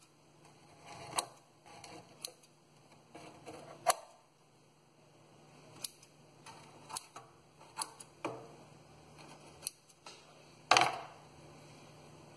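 Small scissors snipping through the roots of a pepper seedling: a series of sharp, irregularly spaced snips during root pruning, with light rustling between them and a louder clack near the end.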